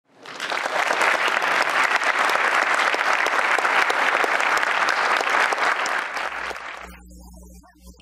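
Audience applauding, a dense steady clapping that dies away about a second before the end, leaving a faint low hum.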